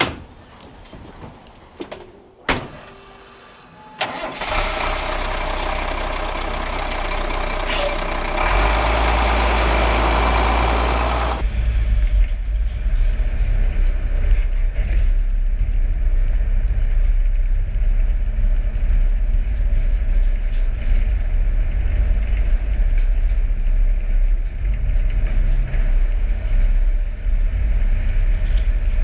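A few clicks and knocks, then a truck's engine starts about four seconds in. It runs with a bright, noisy whine for several seconds, then from about eleven seconds on settles into a steady, deep engine sound.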